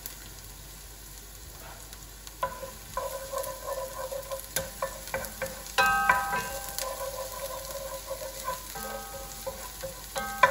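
Chopped onion and garlic sizzling in hot oil in a non-stick pan, stirred with a wooden spoon that scrapes and clicks against the pan. The stirring picks up about two seconds in.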